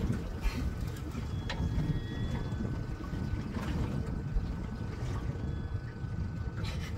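Steady low rumble of a fishing boat under way, with wind on the microphone and a few faint clicks.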